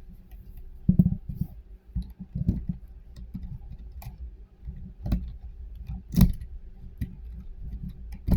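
Plastic number wheels of a combination barrel bolt being turned by hand under a towel, clicking irregularly, with a few louder knocks about one, five and six seconds in.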